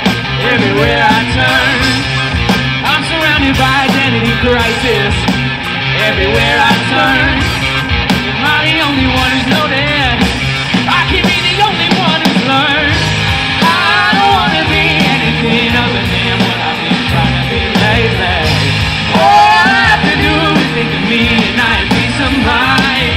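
Live rock band playing through a PA: drums, guitars and keyboard, with a voice singing over them.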